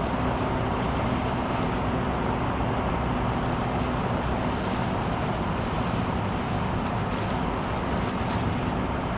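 An engine running steadily with an even noise and a faint low hum.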